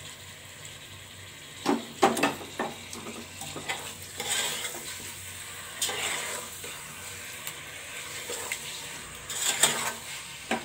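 Raw chicken pieces sizzling in hot oil in a stainless steel pressure cooker as they are stirred in, with a metal spoon scraping and knocking against the pot several times, loudest about two seconds in and near the end.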